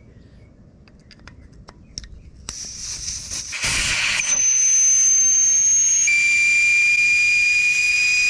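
Air rushing out of a car tire through the valve stem with the valve core removed, deflating the tire: a few light clicks, then from about two and a half seconds in a loud steady hiss with a whistling tone.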